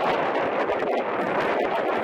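Wind blowing across the camcorder microphone: a steady, loud rushing noise.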